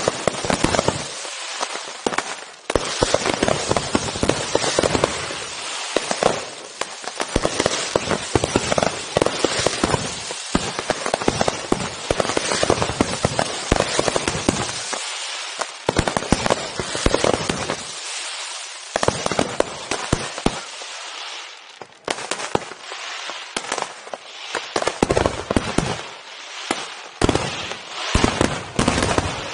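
Fireworks display in full barrage: aerial shells and mines bursting in rapid succession, a dense stream of bangs and crackle, with a few brief lulls in the second half.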